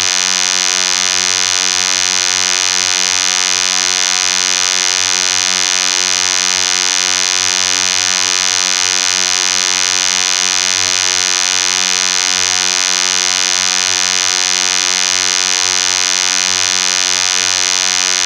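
A loud, steady synthetic buzzing drone, a vocoder sound effect: one unchanging electronic tone with many overtones and no rise or fall in pitch.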